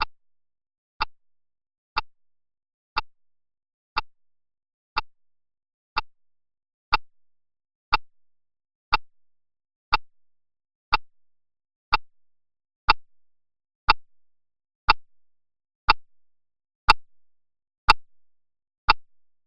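Water drops plopping once a second in a slow, even rhythm, a sound effect used to build tension. The drips grow slightly louder, and from about seven seconds in each is followed by a fainter echo.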